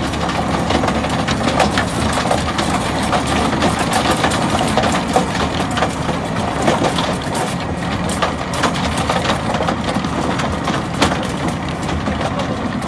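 Claas tractor engine running steadily under load while the Massano RSE300 implement with cage roller works stony soil. Its rotor gives off a continuous, irregular crackle and clatter of stones and clods being struck and crushed.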